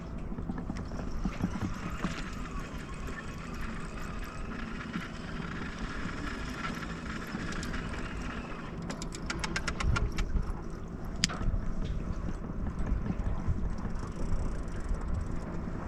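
Pontoon boat's outboard motor running steadily at trolling speed, heard close up from the stern over the churning wake. A quick run of clicks comes about nine seconds in.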